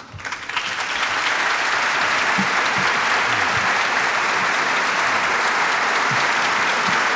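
Large assembly of people applauding: scattered claps at first that swell within about a second into steady, dense applause.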